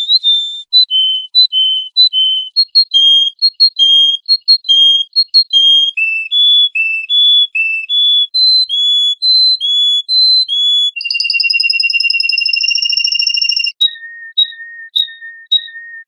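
Songbird singing a run of clear whistled notes, about two a second, stepping up and down in pitch. Near the end it holds one long note on two pitches at once, then gives a few short, lower notes.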